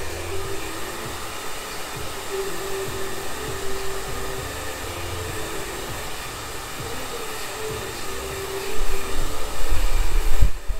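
Handheld hair dryer blowing steadily, a rush of air with a steady hum under it. Near the end, low rumbling gusts grow louder.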